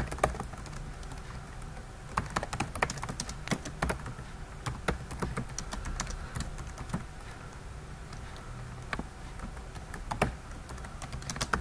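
Computer keyboard keys clicking as a line of code is typed, in irregular runs of quick keystrokes with short pauses between them.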